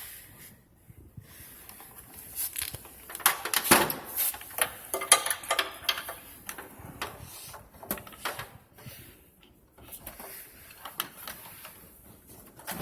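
Handling noise from work on the treadmill's cable routing: irregular clicks, taps and rustles of cable and parts being moved, busiest about four seconds in and again near nine seconds.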